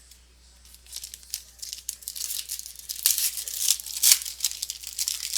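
Wrapper of a pack of baseball trading cards being torn open and crinkled, starting about a second in, with loud crackling near the middle.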